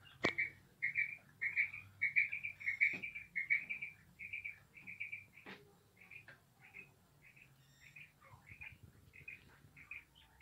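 Female quail calling: short high notes in quick pairs and runs, repeated over and over, louder in the first few seconds and fainter later. A few sharp clicks fall among them, the loudest just after the start.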